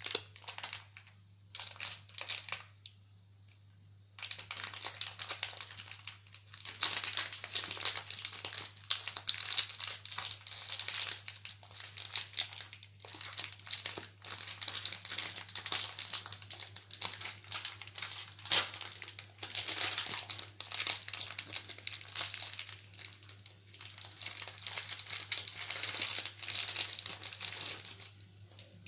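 Plastic wrapper of a chocolate chip cookie packet crinkling as hands struggle to open it. A few short crinkles come first, then almost unbroken crinkling and rustling.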